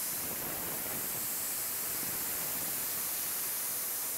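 Steady hiss from a CNC mill's coolant spray nozzle while the end mill rough-cuts a tellurium copper button post.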